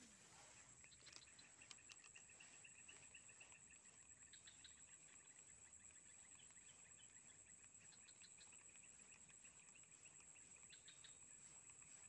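Faint chorus of insects: a steady high-pitched buzz with another lower steady trill beneath it, and scattered short chirps and ticks.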